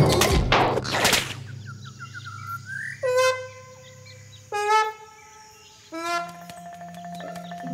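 Cartoon sound effects: two quick whooshes, then a short rising squeak and three short honking calls about a second and a half apart, each dropping in pitch and then held. Light music comes in near the end.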